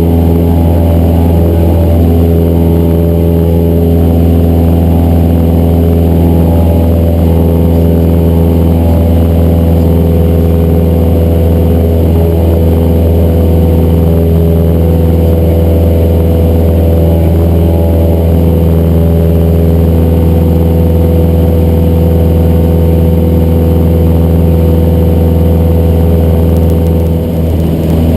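Cessna 172's single piston engine and propeller droning steadily, heard loud inside the cockpit, with a brief dip in level near the end.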